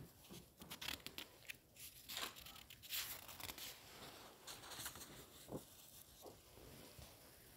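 Paper rustling as a leaf of a book is turned by hand: a run of soft crinkles and scrapes over the first three seconds or so, then a few faint ticks.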